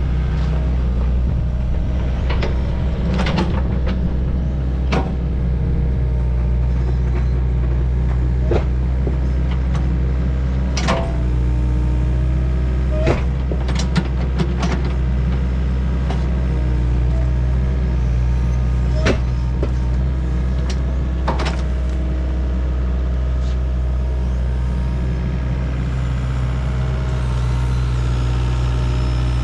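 Diesel engine of a Doosan DX55W wheeled excavator running steadily, with scattered sharp metallic knocks and clanks from the working machine.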